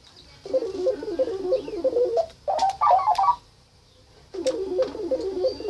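Electronic sound effect for an alien invasion: rapid warbling, stepping tones. A low run is followed by a brief higher run, and after a second's pause the low warble comes back.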